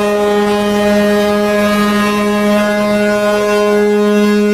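A large passenger ferry's whistle sounding one long, steady, low blast.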